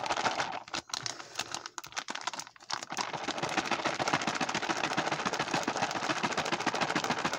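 MRE beverage pouch holding water and grape drink powder being kneaded and shaken to dissolve the powder: fast crinkling and crackling of the plastic pouch. It comes in patches at first, then runs as a steady crackle from about three seconds in.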